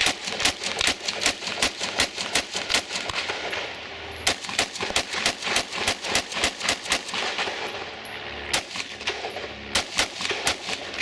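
AR-15-style semi-automatic rifle built on a Seekins receiver set, fired rapidly in strings of shots, with short pauses about four and eight seconds in.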